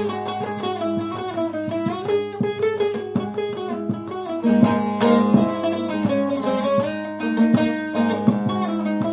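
Long-necked bağlama played solo in a free improvisation: rapid plucked melody notes that slide up and down over ringing drone strings.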